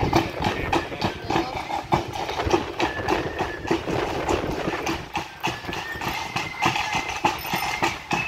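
Marching band drums, side drums and bass drum, beating a steady marching rhythm, with a few faint high held notes over them.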